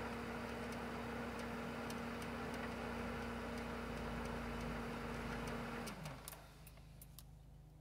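Pool pump motor running with a steady hum and regular light ticking, then shutting off about six seconds in, its hum sliding down in pitch as it winds down, followed by a few light clicks. The pump is switched off by the pool's automation panel, not by hand.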